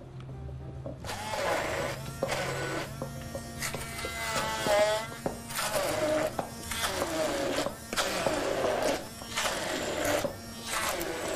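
Handheld immersion blender running in a tall plastic beaker, grinding raw chilli, lemongrass, ginger, garlic and shallot pieces into curry paste. It starts about a second in and runs in repeated surges with short breaks.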